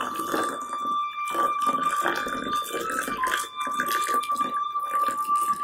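Tea poured in a thin stream from a small clay teapot into small porcelain cups: a continuous trickle and splash of liquid into the cups. A steady high tone runs alongside it.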